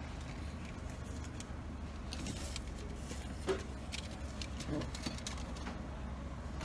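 Car engine idling, a steady low hum heard inside the cabin, with scattered light clicks and rustles and one louder knock about halfway through.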